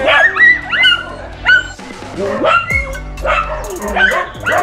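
Dogs barking and yipping repeatedly in short calls, over background music.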